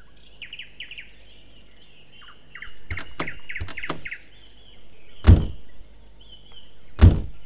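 Car doors being handled and shut: a few clicks and knocks, then two heavy door thuds, about five seconds in and near the end, the loudest sounds. Small birds chirp throughout.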